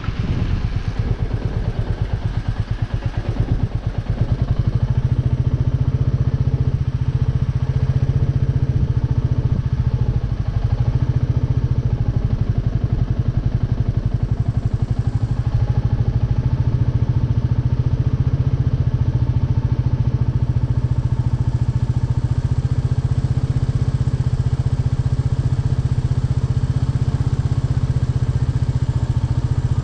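Royal Enfield Meteor 350's single-cylinder engine idling steadily with an even, pulsing exhaust note. Wind noise fades out over the first few seconds as the bike comes to a stop.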